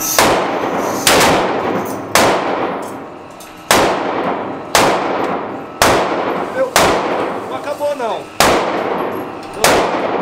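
Gunshots fired one at a time at a slow, uneven pace, about one a second, nine in all. Each shot rings off with a short echo in the enclosed indoor range.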